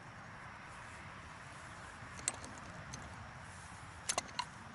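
A few sharp clicks and clinks of a hand tool being handled at a submersible well pump's plastic discharge fitting: one about two seconds in and a quick cluster of three near the end.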